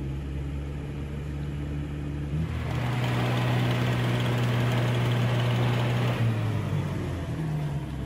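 An off-road 4x4 SUV's engine pulling under load as the vehicle climbs a muddy, rutted slope. The engine is steady at first; about two and a half seconds in it rises to a louder, harder pull with a rushing noise, and it eases off around six seconds in.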